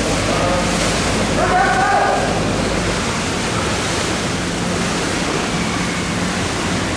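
Steady rushing noise of wind and river water with a low boat-engine hum underneath; faint voices briefly about a second and a half in.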